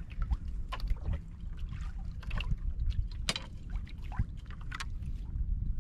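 Water lapping and slapping against the hull of a small boat at sea: irregular splashy ticks over a steady low rumble.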